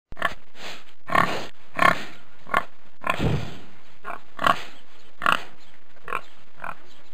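A pig grunting: about a dozen short grunts at an uneven pace, with a longer, deeper grunt about three seconds in, over a steady background hiss. The recording starts and stops abruptly.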